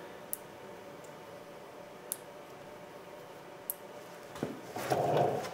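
Small plastic door-handle clips being handled and pushed into place: three sharp little clicks a second or two apart, then a louder rustling scrape of plastic parts near the end.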